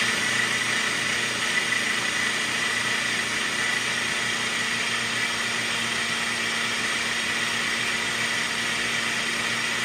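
Single-serve countertop blender motor running steadily, blending a thick tahini sauce, with a steady high whine over the rush of the blades.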